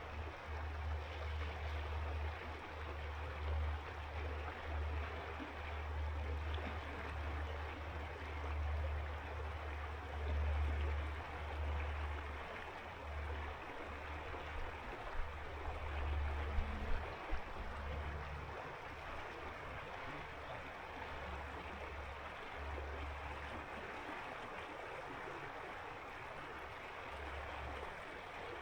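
A river flowing: a steady, even wash of water noise. Under it is a low rumble that comes and goes and dies away in the last few seconds, with a few brief knocks a little past halfway.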